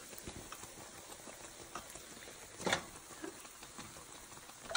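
Patongko dough sticks deep-frying in a pan of hot oil: a steady fine crackle and bubbling. A short knock, about two and a half seconds in, stands out above it.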